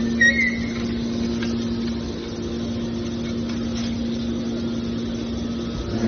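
Scrap car baler running with a steady mechanical hum, with a brief high squeal about a quarter second in.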